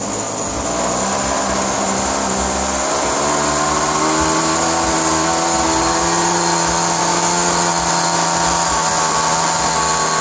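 ASP 56 glow-fuel model aircraft engine running at high speed on a test bench and turning its propeller, with a steady buzzing tone whose pitch shifts a little about three seconds in. This is its first run after being built, with the fuel mixture being opened a little.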